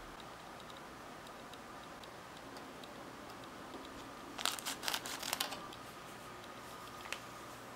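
Scissors snipping open a foil-lined Popin Cookin powder packet: a quick run of crisp snips and crackles about halfway through, then a single click near the end.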